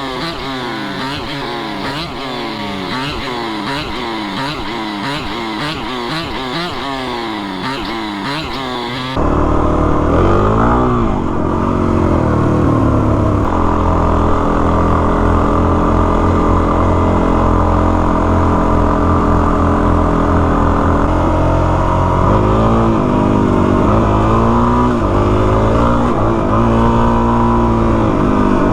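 Single-cylinder dual-sport motorcycle engine riding off-road, its revs swinging rapidly up and down over and over for about nine seconds. Then it is suddenly louder and steadier, with the revs rising and falling again near the end.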